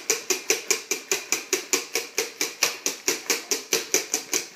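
Wire whisk beating eggs in a stainless steel mixing bowl, clicking against the metal in a fast, steady rhythm of about six or seven strokes a second.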